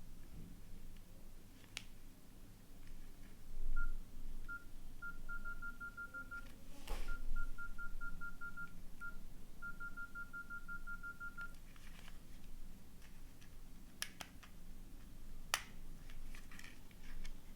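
Nokia N80 keypad tones: short beeps all at the same pitch, some single and some in rapid runs of several beeps a second, from about four seconds in until about eleven seconds in. A few sharp clicks of the phone being handled come before, during and after the beeps.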